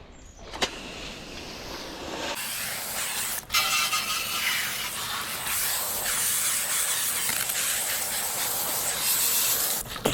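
Steady hiss of water spraying, setting in about two seconds in, growing louder a little after three seconds and cutting off suddenly near the end.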